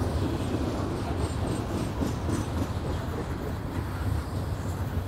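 Freight train of coal hopper cars rolling past, a steady low rumble of wheels on rail.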